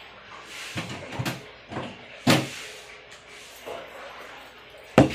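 Knocks and clatters of kitchen cupboard doors and things being handled: a run of short knocks, the loudest about two seconds in, and a sharp knock near the end.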